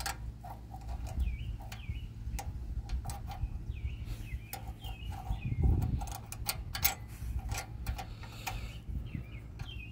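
Scattered small clicks and taps of a carburetor and its gaskets being handled by hand, with one louder low thump a little before six seconds in. Birds chirp briefly now and then in the background.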